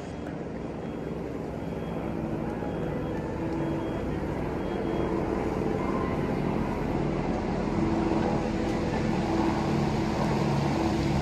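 Murmur of a large crowd talking at once, slowly growing louder.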